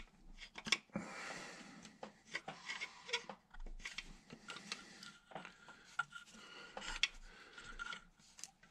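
Faint metal scraping and irregular light clicks as a steel screwdriver works a main bearing shell into its seat in an International 986 tractor engine, easing the shell's locating tab into place.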